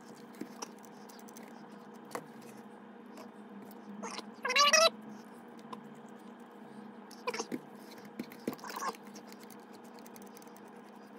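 Small clicks of a screwdriver and screws working on a plastic RC truck chassis. About four and a half seconds in comes the loudest sound, a short high-pitched call that rises and then holds, with fainter short calls later.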